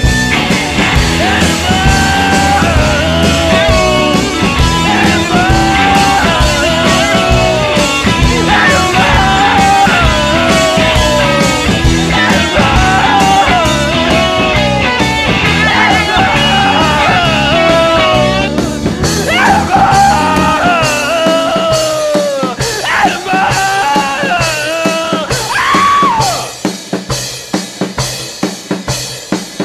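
Rock song with singing over drums and guitar, thinning out and fading in the last few seconds.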